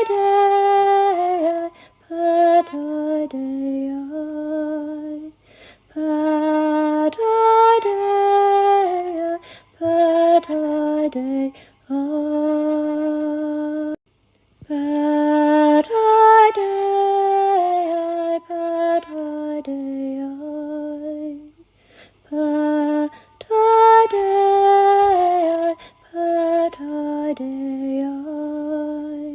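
A woman singing unaccompanied: slow, lullaby-like chant in long phrases of held and gliding notes, each phrase followed by a short pause.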